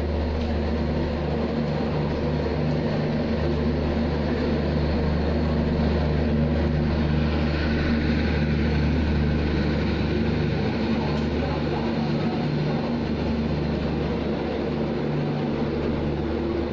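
Passenger train rolling slowly, heard from inside a coach at its open door: a steady low rumble and hum.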